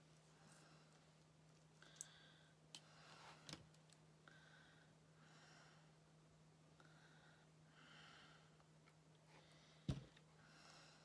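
Near silence: a faint steady hum and soft breathing, with a few small clicks of hands working a glued ornament. A single knock near the end as the cordless hot glue gun is handled on the table.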